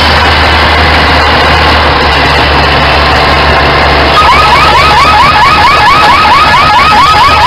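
Vintage tractor engine running steadily under load while pulling a weight sled. From about four seconds in, a fast, rising alarm-like chirp repeats over it, about three or four times a second.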